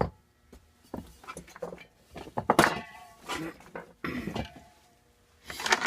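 Metal tools and engine parts being handled: a sharp click at the start, then irregular clinks and clatters, a few with a brief metallic ring.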